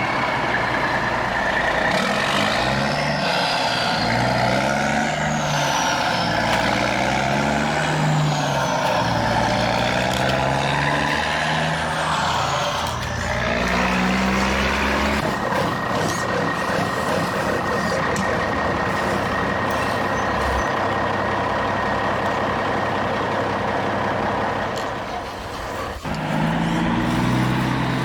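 Model truck sound of a diesel engine, its pitch stepping up and down as it revs. About halfway through, a steady high whine sets in and runs until the stepping engine tones return near the end.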